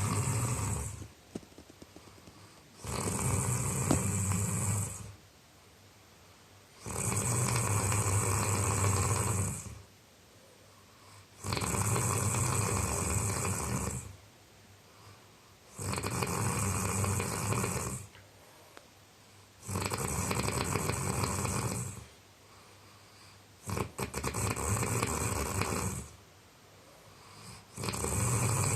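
A man snoring in deep sleep: a loud rasping snore about two seconds long, repeating regularly about every four seconds, with quiet breaths between.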